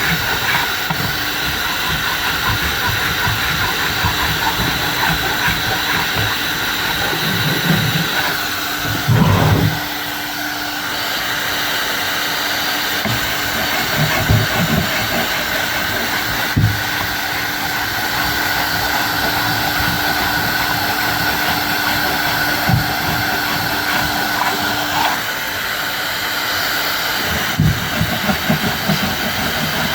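A hand-held electric power tool running steadily with a hiss and a steady hum, dipping briefly twice, with scattered knocks from the workpiece being handled.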